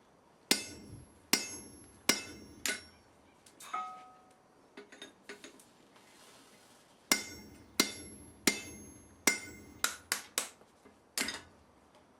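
Blacksmith's hammer striking metal on an anvil, each blow ringing briefly. There is a run of four hard blows, a pause with a few light taps and clinks, then a quicker run of about eight blows.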